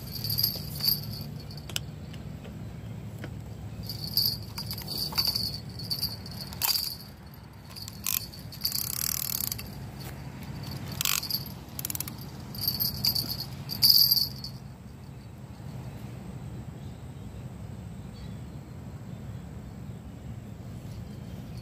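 Small jingle bells clipped to a fishing rod ringing in short irregular bursts as something tugs at the baited line, the bells' bite signal. They stop after about fifteen seconds. A steady low hum runs underneath.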